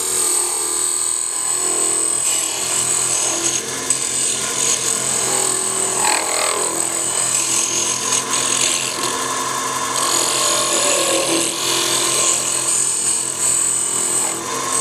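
Wood lathe running while a turning tool cuts into the spinning wooden ornament blank, with steady motor hum under an uneven shaving and scraping sound.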